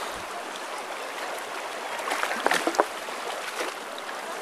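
Shallow river water flowing steadily as people wade through it on foot, with their legs splashing in the current; a short cluster of louder splashes comes a little past halfway.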